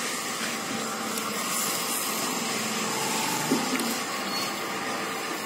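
Steady, even rushing hiss of a running motor-driven machine, with a faint steady whine under it.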